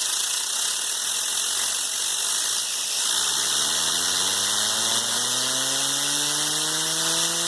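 Compressed air hissing steadily as it blasts a fidget spinner; about three seconds in, the spinner starts to whir, its pitch rising steadily as it speeds up.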